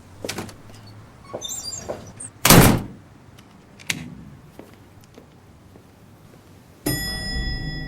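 Scattered light clicks and knocks, a brief high tinkling, then one short, loud noisy thud-like rush about two and a half seconds in. Near the end a steady sound with several high tones starts suddenly.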